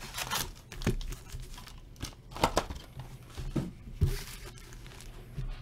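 Foil trading-card packs rustling and crinkling as they are handled, pulled from their box and set down in a stack, in a handful of short irregular rustles with a few light taps.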